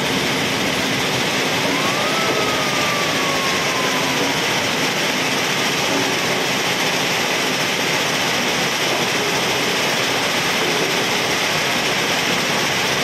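Puzzolana cone crusher running and crushing stone, a loud steady noise of machinery and rock. A faint thin tone rises about a second and a half in, then slowly falls away over the next few seconds.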